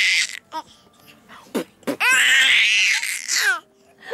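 Baby boy laughing in high-pitched squeals: one at the start, a longer one from about two seconds in, with short sharp sounds between them.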